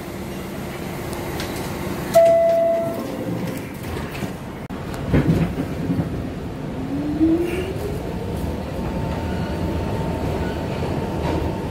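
New York City subway 3 train pulling out of a station and gathering speed: steady running noise of the cars, a short steady tone about two seconds in, a clunk about five seconds in, then a whine rising in pitch as the train accelerates.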